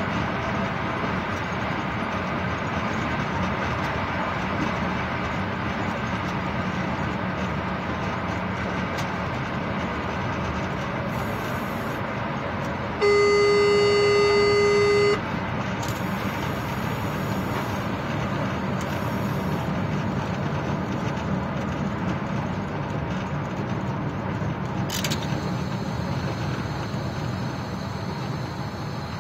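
Steady rumble and rail noise of a locomotive under way, heard from the cab. About halfway through, the horn sounds one steady blast of about two seconds.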